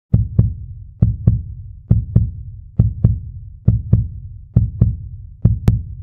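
Heartbeat sound effect: paired low thuds (lub-dub) repeating steadily a little under once a second.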